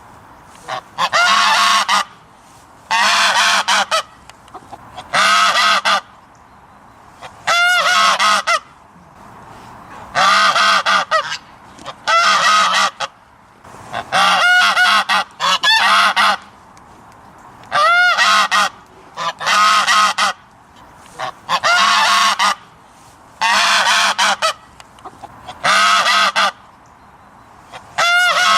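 A goose honking in bursts of about a second, repeated roughly every two seconds.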